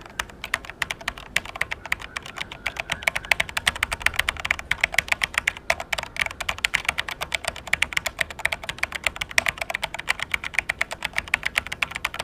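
Fast typing on a Corsair K95 RGB mechanical keyboard: a rapid, continuous clatter of key switches, many keystrokes a second with brief pauses.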